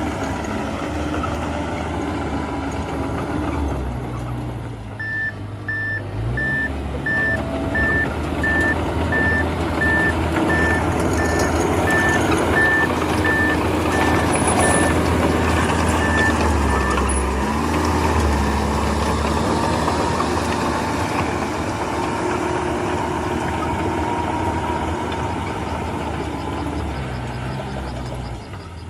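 Diesel engine of heavy machinery running, with its pitch rising and falling a couple of times. A reversing alarm beeps about twice a second for roughly twelve seconds, starting about five seconds in.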